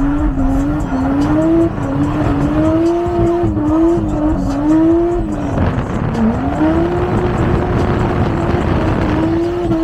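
1JZ straight-six engine revving hard under load, its pitch rising and falling as the throttle is worked, with tyres squealing as the car slides. The revs drop briefly about six seconds in, then climb back.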